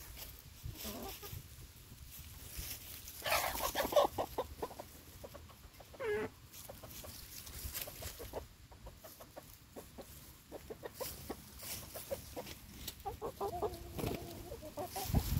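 Chickens clucking, with the loudest flurry of calls about three to four seconds in and a quick run of clucks near the end.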